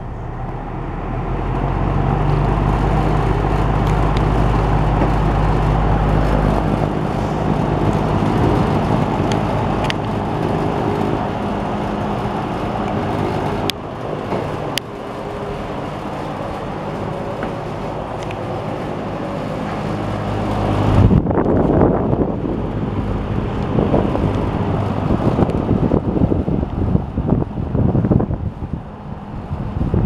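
Windsor box fan motor coming up to speed, then running with a steady hum and rush of air. About two-thirds of the way through, its airflow starts buffeting the microphone with gusty, uneven wind noise.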